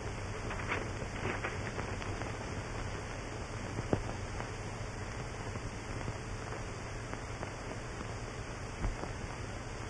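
Surface noise of an old 1930s film soundtrack: steady hiss and low hum with scattered crackles and pops, one sharper click about four seconds in.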